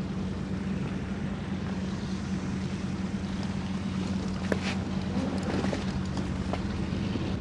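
Steady drone of the C-47 transport planes' engines in the film's soundtrack, played over a hall's loudspeakers, with a few faint clicks and no speech.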